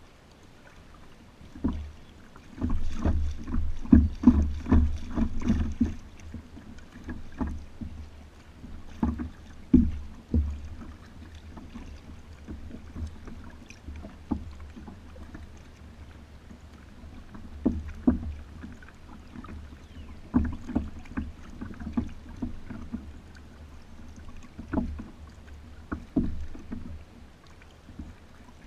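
Kayak paddling: irregular paddle splashes and thumps, a dense run of them a couple of seconds in, then scattered strokes every few seconds.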